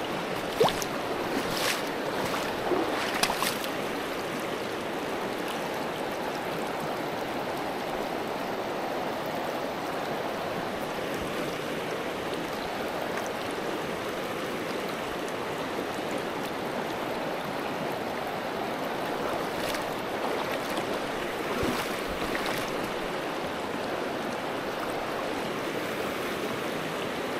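Trout stream water rushing steadily, with a few brief knocks in the first few seconds.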